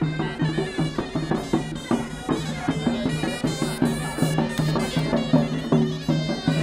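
Traditional Moroccan folk music led by shrill, reedy wind instruments playing a sustained, droning melody over a steady drum beat.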